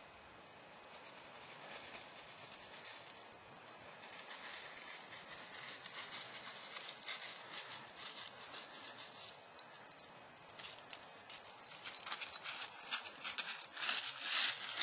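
Crunching steps on snow, a dense run of crackly clicks that grows louder about four seconds in and is loudest near the end.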